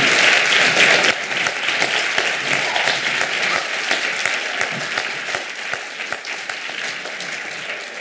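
Audience applauding, loudest in the first second, then slowly dying away.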